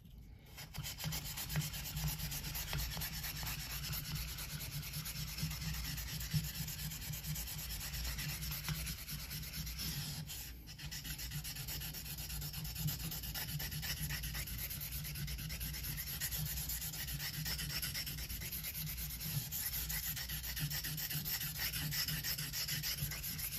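Opinel knife blade held flat and rubbed back and forth on a wet Shapton Kuromaku 1000-grit waterstone: continuous steel-on-stone scraping, broken by a short pause about ten seconds in. This 1000-grit stage smooths out the coarse scratches left by the earlier stone.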